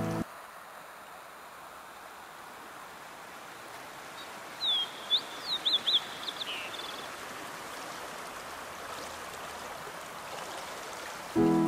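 Steady hiss of flowing river water, with a bird calling in a quick series of sharp chirps about five seconds in.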